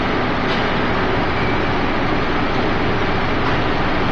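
YK circular vibrating screen running on test, its electric motor driving the exciter through V-belts: a loud, steady mechanical noise with a low hum running through it.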